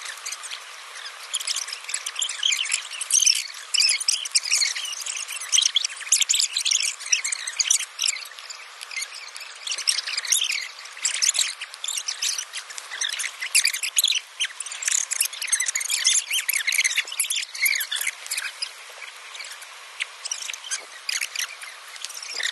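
Dense, busy chirping of birds and insects, many short high calls overlapping without a break.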